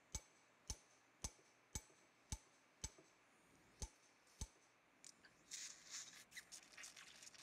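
Mallet tapping the impactor to seat a Biomedtrix BFX cementless acetabular cup into the reamed acetabulum: eight sharp taps about half a second apart, with a short pause after the sixth. Faint rustling near the end.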